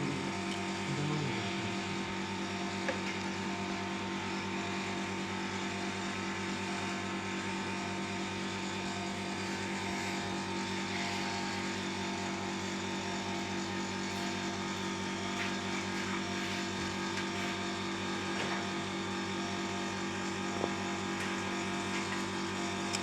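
A steady machine hum, like a motor running, that holds one even pitch throughout.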